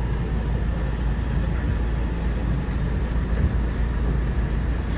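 Steady low rumble and hum inside an R211A subway car on the New York City C line.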